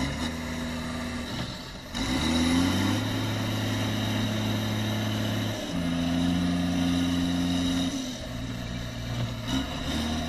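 John Deere tractor's diesel engine working hard while the tractor is bogged in mud, pushing with its loader bucket. The engine revs up about two seconds in, then runs loaded, and its pitch jumps a few times.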